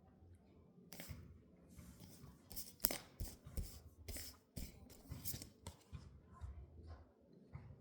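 Tarot cards being handled on a table: a run of short, sharp rustles and clicks, the loudest about three seconds in.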